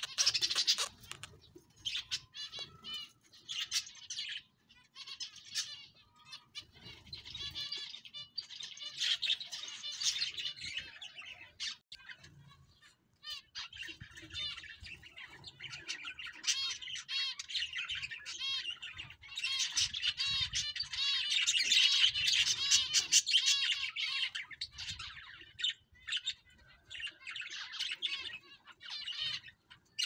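Budgerigars and zebra finches chirping and chattering, many quick overlapping calls that come and go, loudest in a dense stretch of chatter about two-thirds of the way through.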